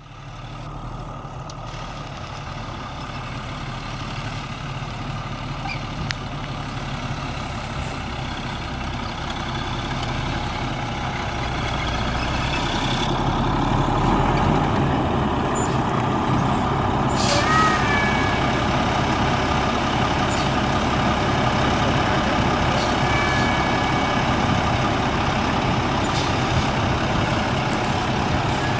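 Cummins M11 inline-six turbo diesel of a 1997 International 8200 semi running as the truck drives up, growing louder as it approaches and then running steadily close by. A little past halfway comes a short click and a brief squeak.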